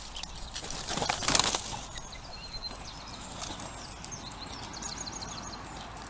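A flock of jackdaws taking off from a garden feeder, a short loud rush of flapping wings about a second in. Small songbirds then chirp, with a quick run of high notes near the end.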